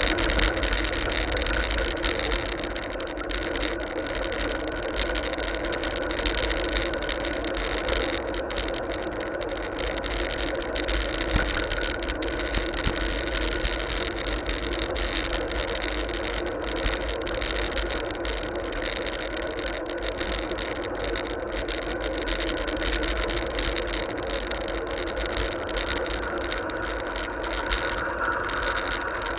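Steady riding noise on a bicycle-mounted camera's microphone: low wind rumble and tyre-on-road noise, with a constant hum running under it.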